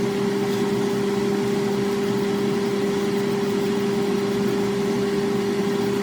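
Steady mechanical hum with a constant low drone and a faint hiss, unchanging throughout.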